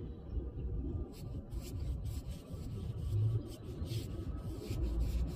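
Paintbrush stroking stain onto a wooden door: a run of short, scratchy brush strokes starting about a second in, over a low rumble.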